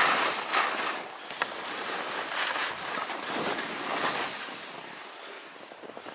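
Skis scraping and hissing across early-season snow in a quick series of turns, each turn a swell of hiss, with wind on the microphone; the swells fade off near the end.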